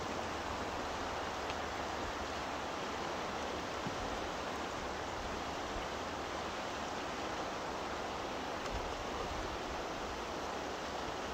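Steady rushing of a river flowing over rocks and shallow riffles.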